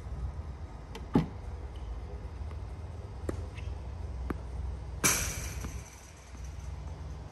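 Battery-powered Tennis Tutor ProLite ball machine running with a steady low hum and shooting tennis balls with sharp knocks: one about a second in, and a louder one with a hiss trailing off about five seconds in. Fainter clicks of balls being struck or bouncing come between.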